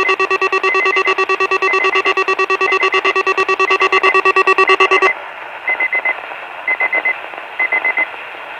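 Electronic alert tones on a weather radio channel: a loud buzzer-like tone pulsing many times a second, cut off abruptly about five seconds in, while groups of about four short high beeps repeat roughly once a second.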